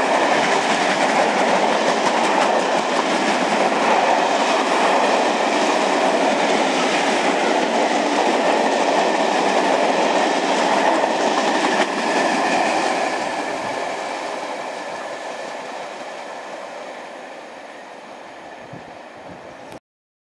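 Passenger coaches of a steam-hauled train running past at speed, their wheels clattering over the rails. About twelve seconds in, after a cut, the sound fades steadily as the train draws away, then stops abruptly near the end.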